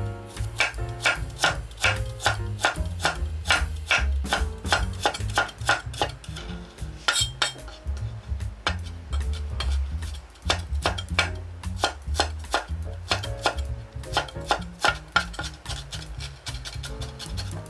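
Kitchen knife chopping vegetables on a cutting board, even strokes about two or three a second with a short pause about halfway, over background music.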